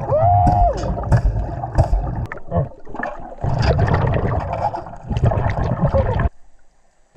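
Underwater bubbling from a scuba diver's exhaled breaths: four bursts of rumbling, gurgling bubbles, with a short rising-and-falling whine at the start. The sound drops out abruptly about six seconds in.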